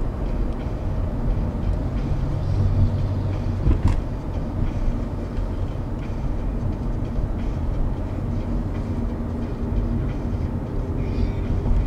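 Steady low rumble of a moving road vehicle with a constant hum, with a single short click about four seconds in.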